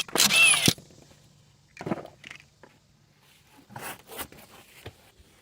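Tools and metal parts being handled: a loud rasping scrape in the first second, then scattered lighter clicks and knocks.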